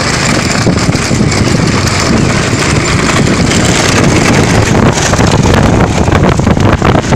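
Loud, steady rush of wind on the microphone over a running vehicle, filmed while moving at speed beside racing bullock carts, with rapid rattling strokes near the end.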